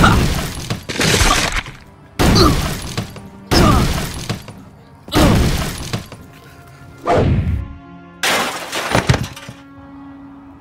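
A rapid run of about seven fight-scene hit sound effects, one every second or so, each a sharp impact that fades over about a second, over background music. The hits stop shortly before the end, leaving only the music.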